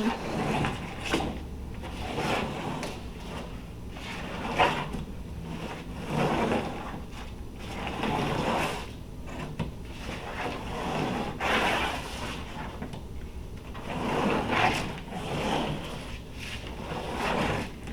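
A small toy car, its wheels coated in paint, rolling and rubbing back and forth over a large sheet of paper in repeated strokes, each swelling and fading every second or two.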